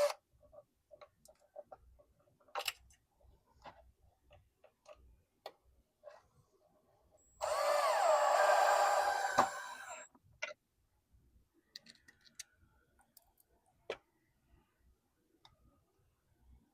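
Power drill running for about three seconds in the middle, driving a screw to mount the descaler's control box. Scattered small clicks and knocks of handling come before and after it.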